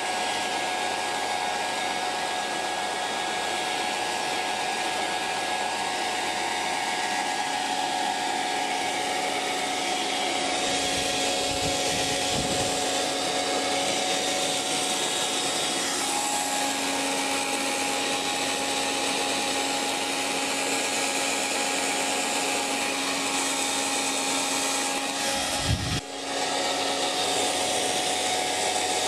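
Hairdryer running steadily: a continuous rush of air with a steady motor whine. Near the end there is a short low thump and a momentary dip in the sound.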